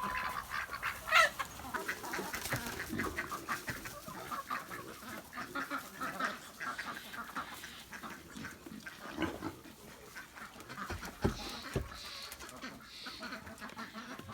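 Farmyard poultry calling: ducks quacking and chickens clucking, many short calls overlapping, with one louder call about a second in.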